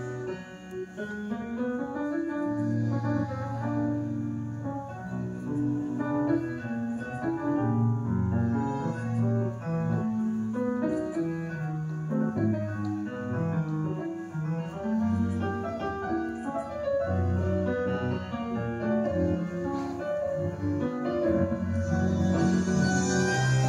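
Tango music with piano and a double bass line, running without pause.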